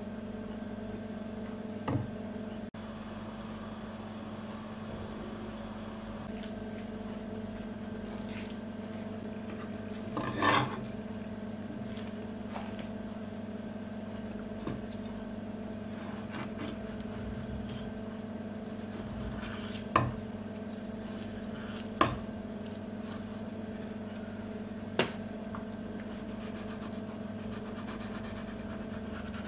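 Kitchen knife working through a sea bass fillet on a plastic cutting board: soft wet slicing and scraping, with a few sharp knocks of the blade on the board, over a steady low hum.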